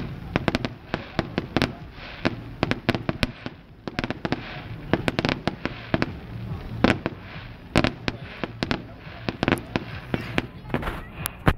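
Fireworks going off in a rapid, irregular string of bangs and pops.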